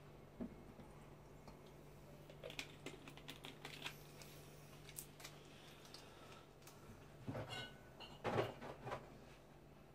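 Faint, scattered clicks and light taps of bottles, glass and ice being handled at a bar counter, with a few louder knocks and clinks about seven and eight seconds in.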